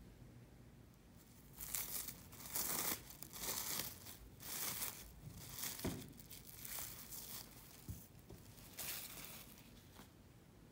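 Plastic cling film crinkling and rustling as it is pulled open and peeled off a block of cookie dough. The crinkles start about a second and a half in and come in uneven bursts for several seconds.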